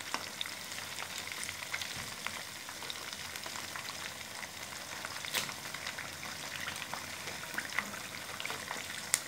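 Gram-flour and rice-flour battered fish pieces deep-frying in hot oil: a steady sizzle full of small crackles and pops. A metal spoon turns the pieces over, giving a couple of sharper clicks, one about halfway through and one near the end.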